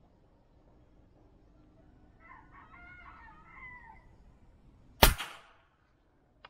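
A wooden speargun fires about five seconds in: one sharp, very loud snap that dies away within half a second. It is the shot that hits a kikilo fish. Before the shot a rooster crows faintly.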